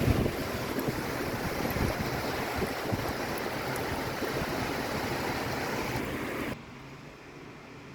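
Storm wind gusting hard and buffeting the microphone, a loud rushing noise with heavy low rumbles. Near the end it drops abruptly to a much quieter steady hiss.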